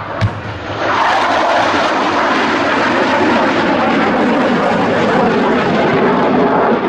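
Jet noise from a CF-18 Hornet's twin General Electric F404 turbofan engines as the fighter flies past in a banking climb. The noise swells about a second in and stays loud and steady.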